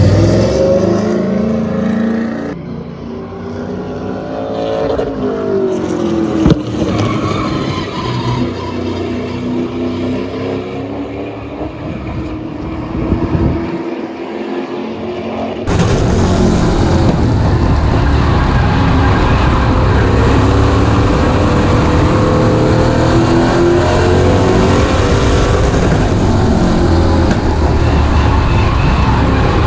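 Late model stock car's V8 engine running on an oval track, its pitch rising and falling with throttle through the laps. About halfway through it jumps abruptly to a louder, steadier drone.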